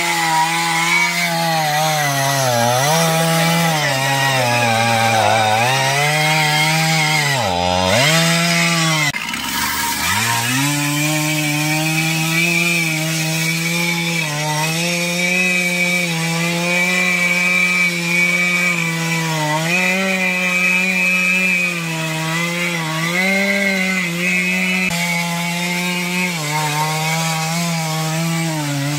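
Stihl MS 461 two-stroke chainsaw running near full throttle while cutting into the base of a large tree trunk. Its engine pitch sags and recovers every few seconds as the chain loads up in the wood, dropping deepest about eight to ten seconds in.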